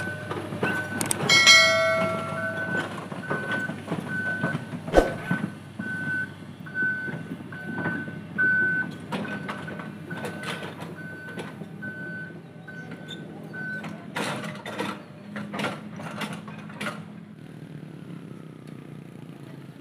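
Tracked excavator's diesel engine running as the machine travels, its travel alarm beeping at a steady pace of just under two beeps a second until it stops about 14 seconds in. Sharp metallic clanks come through, most of them after the beeping ends, with a brief high squeal about two seconds in.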